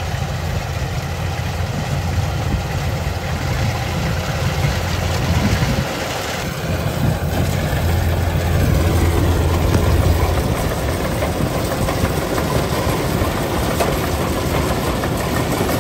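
Kubota 105 rice combine harvester running as it cuts through a rice field: a steady low engine drone that dips briefly about six seconds in, then grows louder for a couple of seconds.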